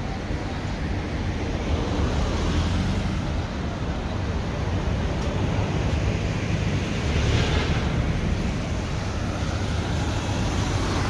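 Steady outdoor city street noise with passing traffic and a low rumble of wind on the microphone, swelling briefly about two-thirds of the way through.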